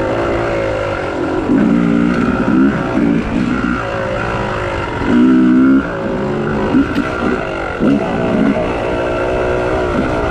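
Yamaha YZ250 two-stroke dirt bike engine under way, revving up in several short bursts and dropping back as the throttle is opened and closed.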